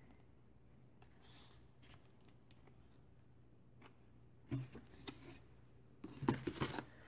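Paper handling: pages of a thin paperback picture book being turned, with faint soft ticks and scratches. About halfway through and again near the end come louder rustles and knocks as books are shifted in a cardboard box.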